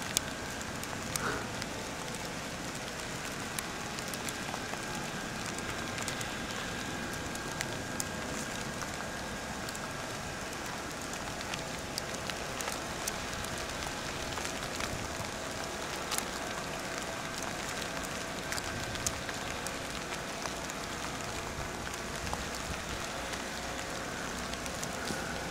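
Blower fan of an inflatable polar bear lawn decoration running steadily, a constant hiss with a faint hum, while it inflates the bear. Scattered light ticks sound over it.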